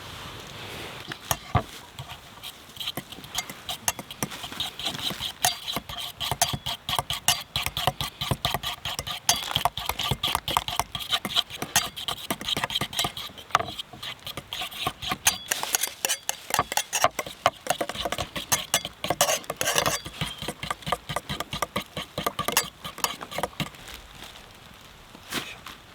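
Wood fire crackling and popping in a dense, irregular run of sharp snaps, fading out near the end.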